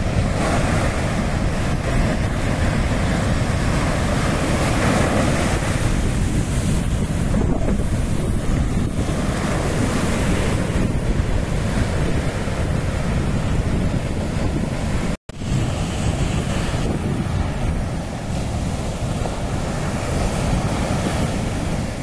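Ocean surf breaking and washing up a sandy beach, with heavy wind buffeting on the microphone. The sound cuts out for a split second about two-thirds of the way through.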